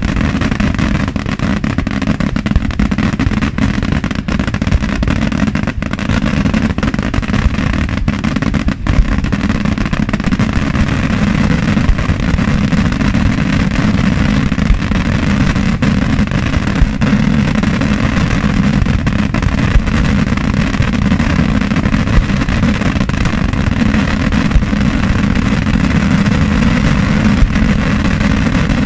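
Daytime aerial fireworks barrage: a dense, unbroken string of shell bursts and crackling reports, with sharper, louder bangs standing out every second or two.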